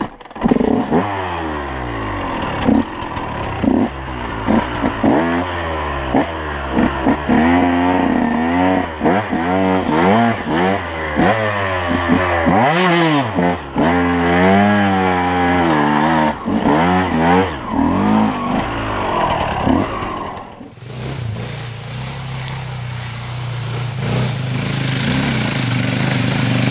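KTM 125 EXC two-stroke enduro motorcycle revving hard, the throttle opened and closed over and over as it climbs a steep dirt trail. About twenty seconds in the sound cuts to a steadier, lower note of a dirt bike running, growing louder as it approaches.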